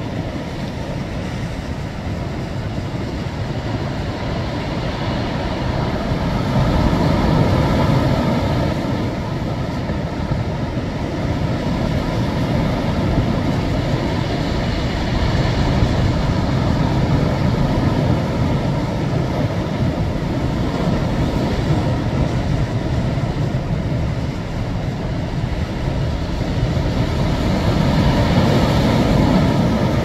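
Rough sea surf, a continuous low rumble of waves washing and breaking against a breakwater of concrete tetrapod blocks. It swells louder as bigger waves crash, about 7 seconds in, around the middle, and again near the end.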